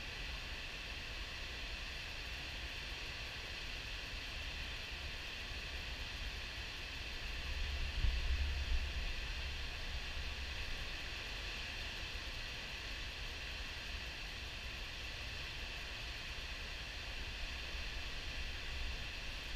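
Steady, even rush of a river at high flow pouring over a diversion dam's spillway and churning below it. A low rumble swells briefly about eight seconds in.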